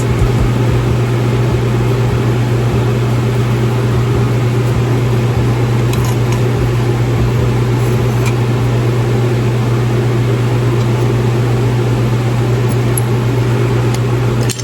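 A machine running with a steady, unchanging low hum, with a few faint clicks partway through.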